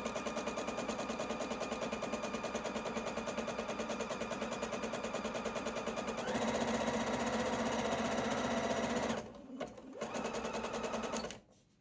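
Domestic sewing machine running steadily at a fast, even stitch rate while sewing an overcasting stitch along a fabric edge; it speeds up a little about six seconds in, stops briefly near nine seconds, then runs again for a short burst before stopping.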